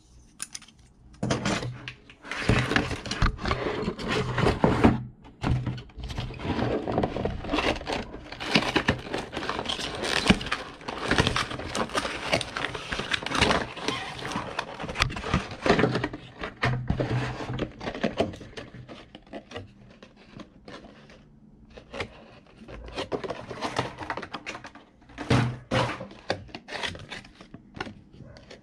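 Cardboard box and clear plastic blister packaging of a pair of walkie-talkies being handled and pulled apart: crinkling, scraping and clicking in two busy stretches with a quieter spell between.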